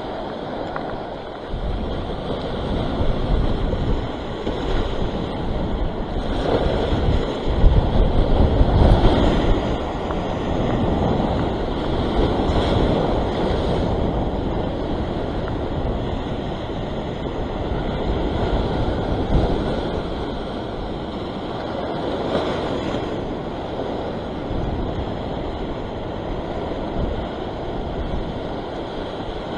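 Surf breaking and washing over a rock shelf, with wind buffeting the microphone; loudest for a couple of seconds about eight seconds in.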